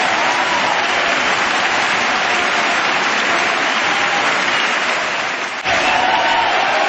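Crowd applause, steady clapping that dips briefly and cuts back in abruptly about five and a half seconds in.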